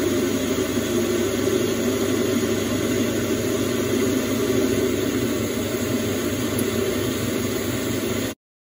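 Metal lathe running steadily while its tool turns down the outside diameter of a round bar. The sound stops abruptly near the end.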